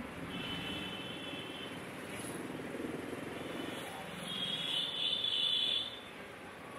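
Street traffic: a small motor vehicle engine passes with an even putter, and a vehicle horn sounds twice, each blast about a second and a half long, the second louder.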